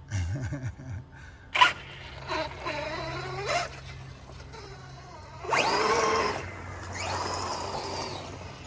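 Electric brushless motor and drivetrain of a 1/6-scale Losi 8ight-X Super Lasernut RC buggy whining in bursts as it revs up and down, the pitch rising and falling with each throttle stab. A sharp knock about one and a half seconds in is the loudest sound.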